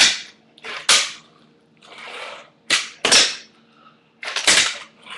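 A handboard, a small hand-sized skateboard, clacking and slapping against a hard surface as tricks are popped and landed: about six sharp clacks, two of them close together near three seconds and two more near the end, with a softer scraping sound around two seconds in.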